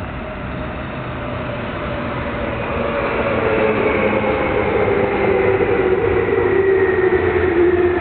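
Electric commuter train pulling into a station, its rumble growing louder as it nears, with a whine that falls steadily in pitch as it slows.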